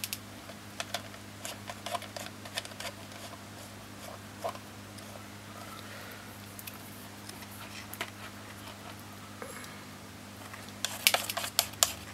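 Scattered light clicks and handling noises as a 12-volt power lead's connections are swapped back to the right polarity. There is a quicker run of louder clicks near the end, over a faint steady low hum.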